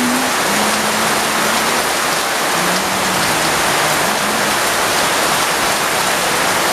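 Steady heavy rain, a dense even hiss. Under it a faint low tone holds and steps between a few pitches, like a slow melody.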